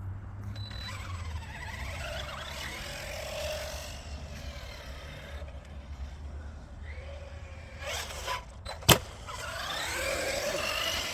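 Electric RC monster trucks with their motors whining, rising and falling in pitch as they rev up and back off. There is one sharp knock about nine seconds in.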